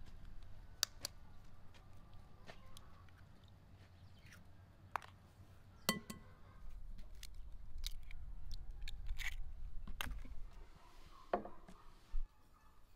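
Eggs tapped and cracked against the rim of a glass mixing bowl: a scattering of sharp clicks and taps, the loudest about six seconds in.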